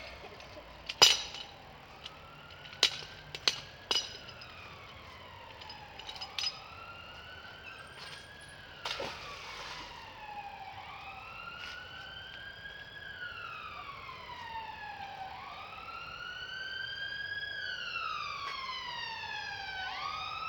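An emergency-vehicle siren wailing in long rising and falling sweeps, growing louder toward the end. A few sharp clacks come in the first four seconds, the loudest about a second in, and there is a splash about nine seconds in as the thrown magnet hits the canal water.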